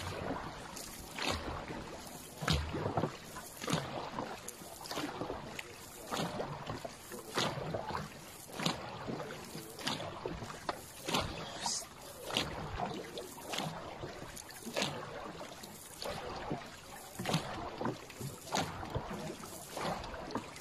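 A Thai longboat racing crew's paddles striking and pulling through the water in unison, a regular stroke about every second and a quarter, over the steady rush of water along the moving hull.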